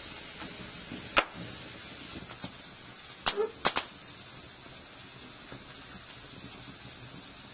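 Steady sizzling hiss of a burger patty grilling over an open wood and charcoal fire, with a few sharp crackling pops: one about a second in and three in quick succession a little after three seconds in.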